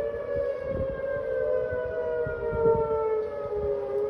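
Outdoor storm warning sirens wailing in two close tones that slowly fall in pitch and begin rising again near the end. The sirens are sounding for high winds, with gusty wind buffeting the microphone.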